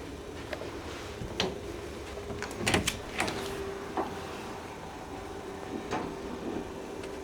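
Steady hum aboard a ferry, broken by several sharp knocks and clatters, the loudest a quick cluster about three seconds in.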